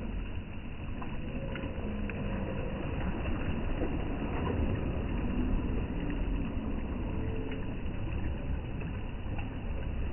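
Steady low rumbling of wind on the microphone over small sea waves lapping against a stone pier.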